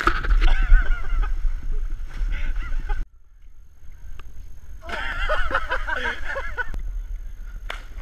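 People whooping and hollering with wordless, rising and falling cries over a low wind rumble on the microphone. The cries stop abruptly about three seconds in, start again after a short lull, and end with a splash into the water.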